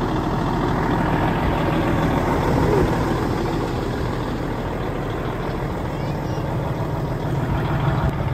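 Kenworth W900 semi truck's diesel engine idling steadily, running to build up air pressure in the air system.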